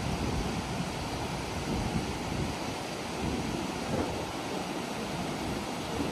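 Muddy, flood-swollen river rushing steadily over rocks and boulders, with some wind noise on the microphone.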